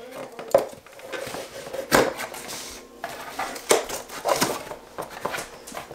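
A cardboard shipping box being unpacked by hand: cardboard and packaging rustling, with several sharp knocks and taps as the box and items are handled on the countertop.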